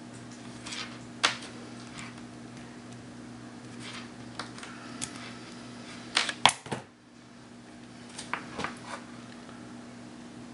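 Sharp clicks and snaps of a hand-held wire stripper/crimper being worked on wire ends and a spade terminal, scattered through the stretch with the loudest cluster a little past the middle. A steady low hum runs underneath.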